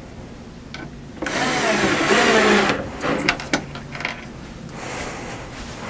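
Cordless drill driving a screw to fasten a metal L-bracket, running for about a second and a half with its motor pitch wavering under load. A few sharp clicks follow.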